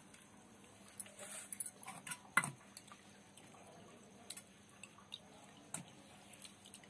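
Thin raw-mango pulp liquid dripping and trickling faintly through a stainless steel mesh strainer, with a few light ticks, the loudest about two and a half seconds in.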